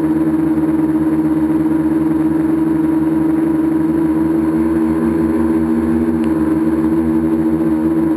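Tricopter's three electric motors and propellers humming steadily in flight, heard loud and close from on board, the pitch wavering slightly as the craft holds and turns.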